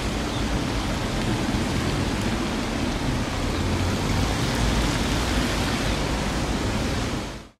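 GBRf Class 66 diesel-electric locomotive standing with its two-stroke V12 engine idling: a steady low rumble under a loud, even hiss.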